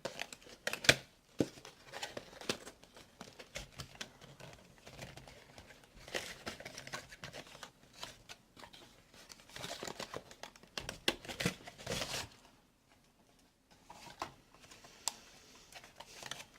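A small retail box and its plastic packaging being opened and handled: crinkling and tearing with scattered clicks and knocks, in louder rustling stretches about six seconds in and again from ten to twelve seconds.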